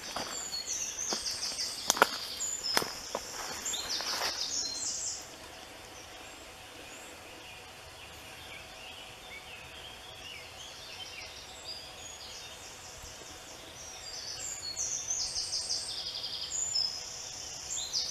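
Woodland songbirds singing in quick, high trilled phrases, busy for the first five seconds, then quieter, then again near the end. A few sharp clicks or snaps sound in the first four seconds.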